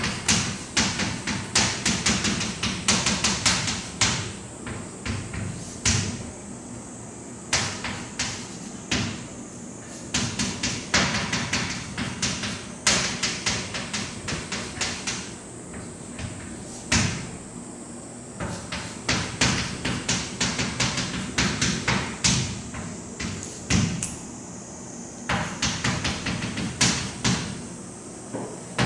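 Handwriting: dense runs of sharp taps and short strokes as someone writes quickly, in bursts of a second or two broken by brief pauses.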